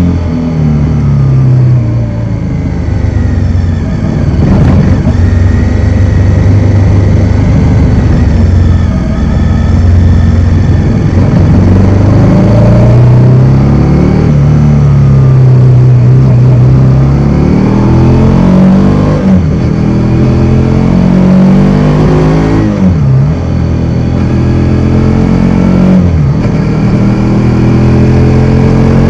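Bajaj Dominar 400's single-cylinder engine running loud on the move, its revs rising and falling as it accelerates and eases off. There are several quick dips in pitch in the second half, as on gear changes.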